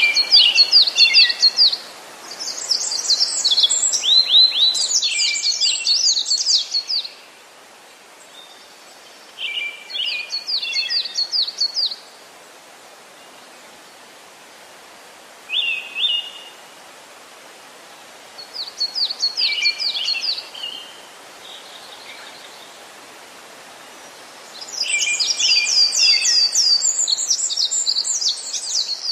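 Small songbirds calling in bursts of rapid, high, falling chirps: several busy phrases of a few seconds each, separated by quieter gaps of a steady outdoor hiss.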